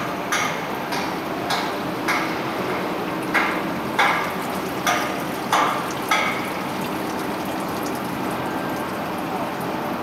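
Steady rush of water spilling over the pool's overflow edge into the perimeter gutter. Footsteps on paving tiles click at a walking pace for the first six seconds or so, then stop.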